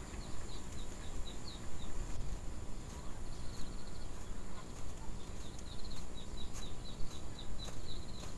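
A small bird chirping in runs of short, high notes, several a second, with a few faint clicks in between.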